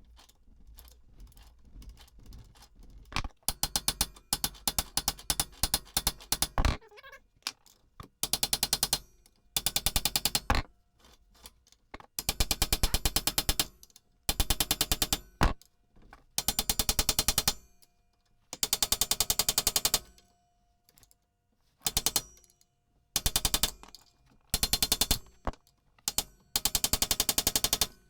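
Air-powered impact tool hammering in about a dozen short bursts of rapid blows, working on the ATV's seized rear brake drum assembly that won't come apart.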